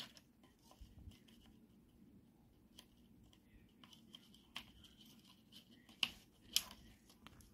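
Faint scattered clicks and scrapes of small parts being handled as an M.2 SSD is worked into a laptop's slot by hand, with a few sharper ticks near the end.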